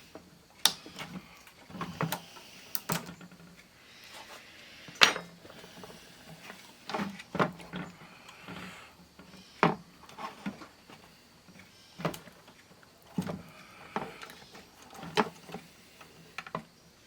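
Irregular light clicks and knocks of an opened 8-track player and its parts being handled, with the loudest knock about five seconds in.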